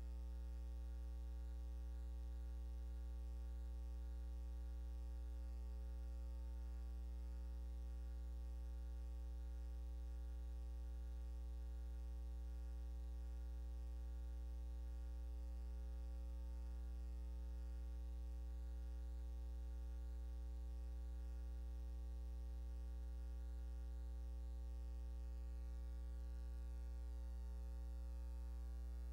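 Steady electrical mains hum with a faint hiss on an otherwise silent track, unchanging throughout.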